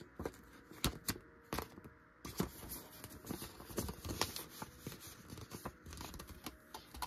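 Canadian polymer banknotes and a laminated plastic cash envelope being handled: irregular crinkly rustling with sharp little clicks as the bills are slid into the envelope.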